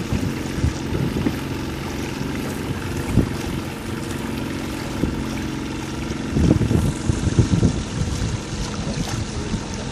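A boat's engine running steadily at an even pitch, with wind buffeting the microphone in gusts, heaviest from about six and a half to eight seconds in.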